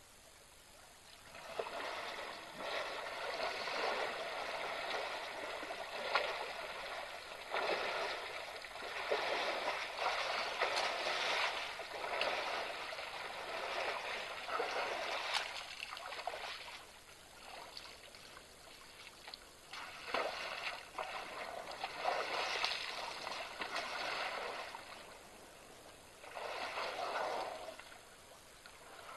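Water splashing and sloshing as African elephants bathe and wallow in a waterhole, coming in uneven surges with quieter stretches in between.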